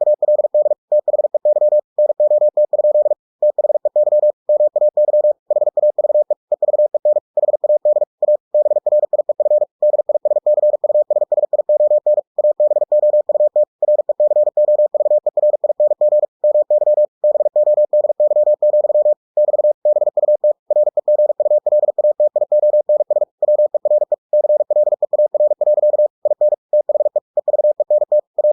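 Morse code (CW) sent at 45 words per minute, generated by ebook2cw software: a single steady mid-pitched tone keyed on and off in very rapid dots and dashes, with brief pauses between words.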